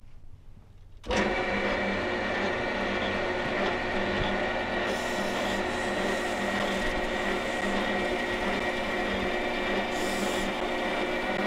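Metal lathe starting up about a second in and then running steadily, with a steady whine made of several held tones, as it spins a Jaguar V12 cylinder liner in its chuck while a pad is held against the liner's outside.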